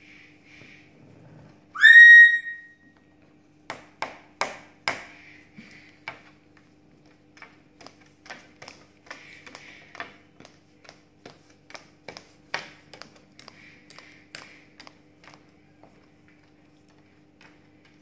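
A conure gives one loud, slightly rising whistle about two seconds in. Then comes a long, irregular run of sharp taps and clicks from its beak and claws on the wooden tabletop and mirror as it bobs and dances, with soft chirps between them.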